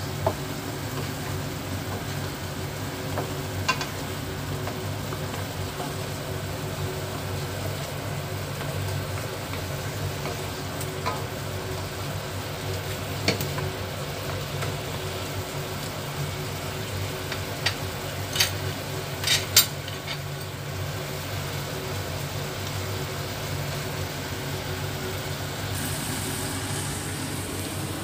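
Pork spareribs sizzling and bubbling in marinade sauce in a nonstick frying pan, over a steady low hum. A wooden spatula stirs them, knocking against the pan a few times, with a cluster of knocks about two-thirds of the way through.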